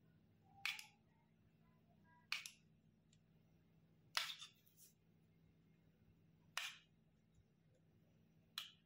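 Five short, sharp taps spaced about two seconds apart: a steel spoon clicking as sweet curd is scooped and spooned onto crisp raj kachoris on a steel plate.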